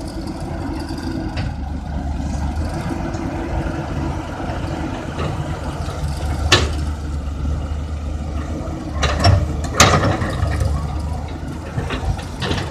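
Samsung excavator's diesel engine running steadily while it loads soil onto a truck, with a few sharp knocks, one about halfway and a couple around two-thirds of the way in.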